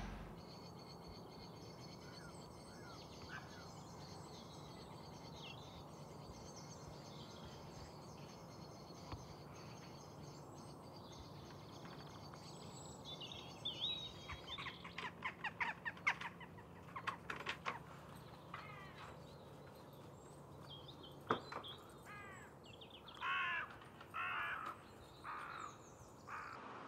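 Outdoor birdsong: faint small-bird chirps, then from about halfway a crow cawing in repeated runs of calls, loudest near the end. There is one sharp click a little past the middle.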